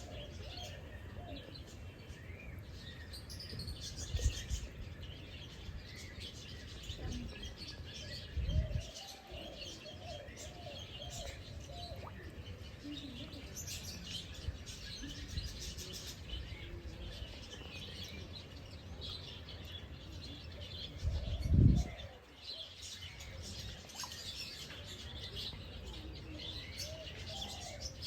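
Many small birds chirping and calling, with short lower-pitched calls mixed in. Three brief low rumbles break in, about 4 and 8 seconds in and the loudest about 21 seconds in.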